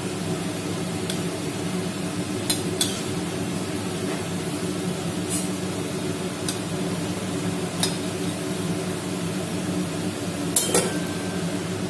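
A metal skimmer clinking against the metal frying kadai and a steel bowl as fried gulab jamuns are scooped out of the oil, about seven sharp clinks spread out, the loudest near the end. A steady low hum runs underneath.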